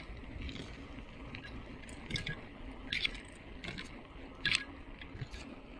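Bicycle rolling along a concrete road: a low rumble of tyres and wind, with a handful of sharp clicks and rattles, the loudest about three-quarters of the way through.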